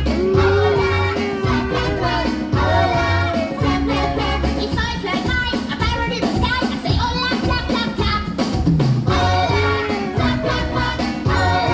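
Upbeat show music with a steady beat and bright melody, with some singing over it.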